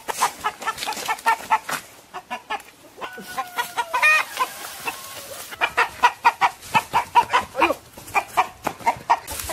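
A chicken clucking rapidly in alarm as it is chased, several clucks a second in two runs, with a brief drawn-out call between them.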